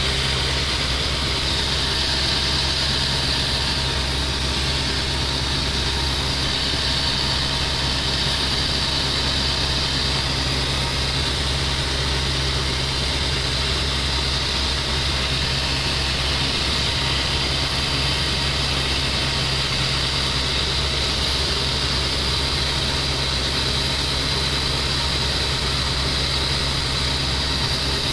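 A light aircraft's engine running steadily in flight, heard inside the cockpit as a constant low drone with a hiss over it.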